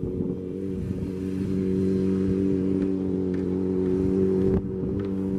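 Motorcycle engine running at steady revs as the bike rides its circuit. It grows louder over the first couple of seconds and dips briefly about four and a half seconds in.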